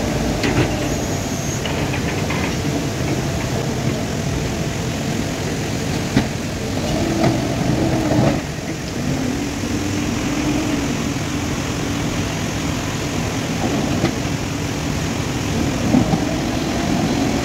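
JCB 3DX backhoe loader's diesel engine running under load, its pitch rising and falling as the loader bucket works. A few short knocks of rock against the bucket come through now and then.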